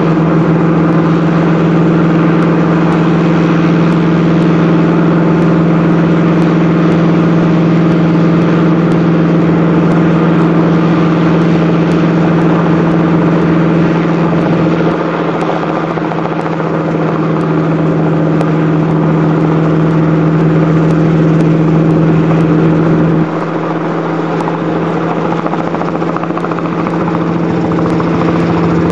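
Small helicopter flying overhead, its engine and rotor making a steady drone that dips slightly about halfway through and again later.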